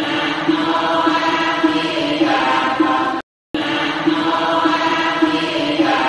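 Buddhist chanting by voices: a short chanted phrase of about three seconds repeats in a loop, with a brief cut to silence about three seconds in.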